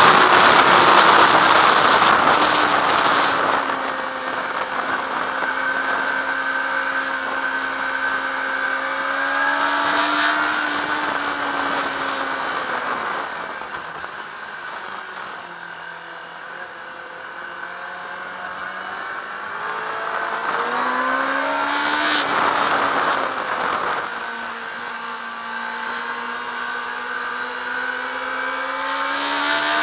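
Yamaha R6's inline-four engine running on track, recorded on board with wind rushing over the microphone. It is loudest and highest-revving at the start, then the revs fall and it runs lower and quieter around the middle. Past the two-thirds mark the pitch climbs again, dips briefly and climbs once more near the end.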